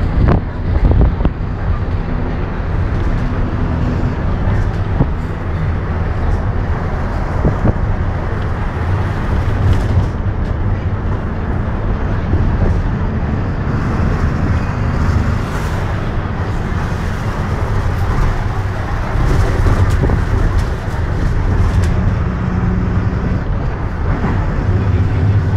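City bus in motion, heard from inside near the rear: the engine runs with a low, steady hum that rises and falls, road noise comes in through the open windows, and the body gives scattered knocks and rattles.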